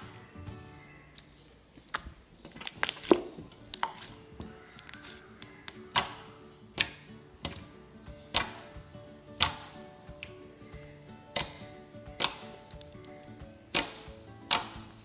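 Thick, glossy slime with foam balls being poked and pressed by hand, giving sharp clicks and pops about once a second, over soft background music.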